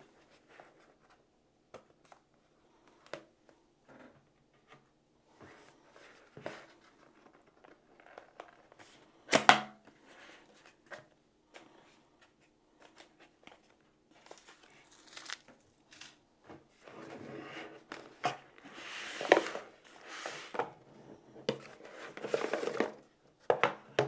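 Cardboard retail packaging being handled and opened: scattered light taps and clicks, a sharp knock about nine seconds in, then longer stretches of paper and cardboard rustling and scraping as the wrapped contents slide out near the end.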